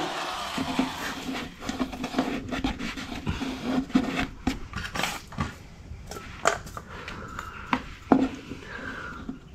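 Handling noise: a string of light clicks, knocks and rubs as a router is set down and a small plastic fitting is picked up and handled, with a sharper knock near the end.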